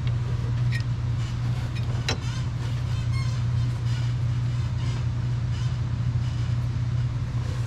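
A steady low hum, with a few light clicks and taps from hands working among the parts in the engine bay.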